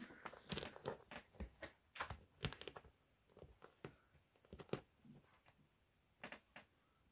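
Egyptian Mau kitten's claws scratching and catching on the quilted fabric of a cat bed. The sound is faint, irregular and scratchy, busiest in the first few seconds and then coming in scattered bits.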